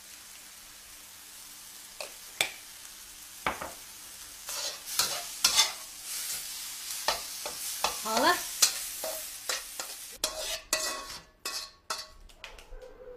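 Tomato and egg stir-frying in a steel wok: a steady sizzle with the metal spatula scraping and knocking against the pan, the stirring busiest from about four to ten seconds in. Near the end the sizzle drops away and a few lighter clinks follow.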